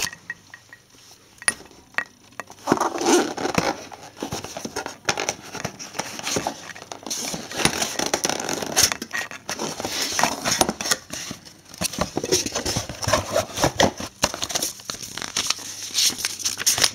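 Packaging being torn open and handled: continuous crinkling, rustling and tearing with scattered sharp clicks as a shipping package is unpacked.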